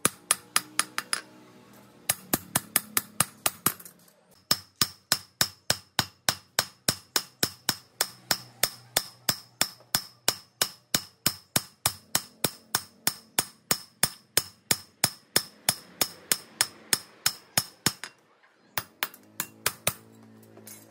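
Steel being forged for a knife: rapid, even hammer blows on the steel at the anvil, about three or four a second, each with a bright metallic ring. The run breaks off briefly twice early on, then stops near the end after a last few blows.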